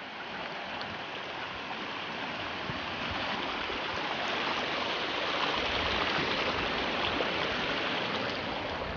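A small mountain stream running over rocks: a steady rushing of water that grows louder about halfway through.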